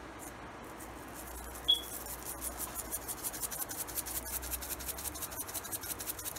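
Two steaks sizzling in hot oil in a frying pan, a steady fast crackle. A brief high ping sounds about two seconds in.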